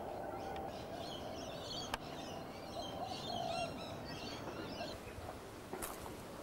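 Small birds chirping in the background, with a sharp click about two seconds in and another near the end.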